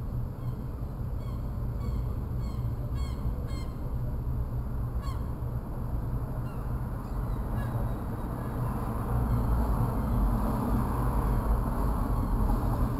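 A bird calling: short, honking calls that fall in pitch, several in quick succession in the first half, over a steady low rumble that grows somewhat louder near the end.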